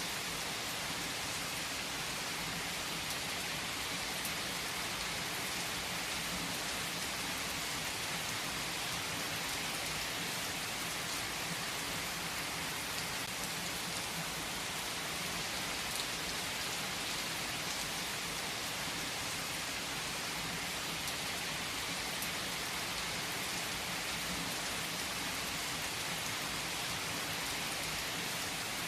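Steady rain falling and pattering on a surface, an even hiss that does not change. A few faint pops, fitting a crackling fireplace, stand out now and then.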